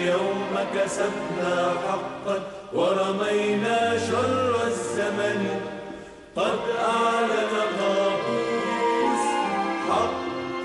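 A choir singing a song over instrumental backing, with new sung phrases coming in about a quarter and about three-fifths of the way through.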